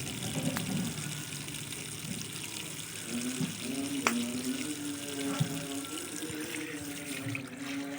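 Liquid running and splashing, as if being poured or flushed. From about three seconds in, a steady hum runs along with it.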